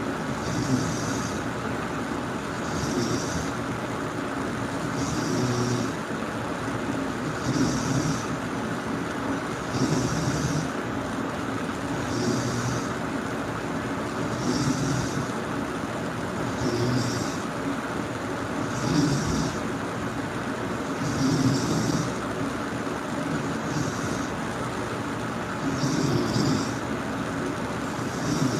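A person snoring steadily, one snore about every two seconds.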